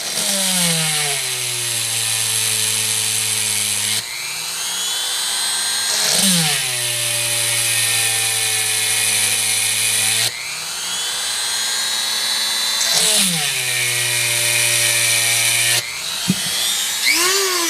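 Small electric drill drilling out the rivet post of a die-cast car's base, running in three long stretches. At the start of each stretch the whine drops in pitch and then settles as the bit bites into the metal.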